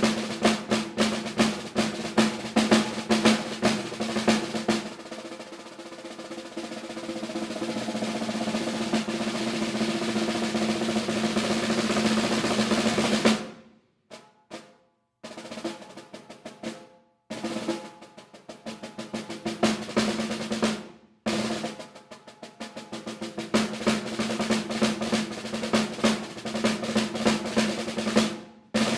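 Solo snare drum playing rudimental figures: rapid strokes, then a long roll that swells louder for about eight seconds and cuts off sharply, followed by short bursts of strokes broken by brief silences.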